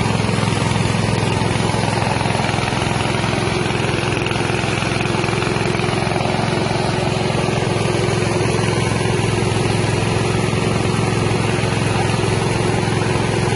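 Mini rice milling machine running steadily, its small 6.5 hp engine and milling drum making an even, unchanging drone.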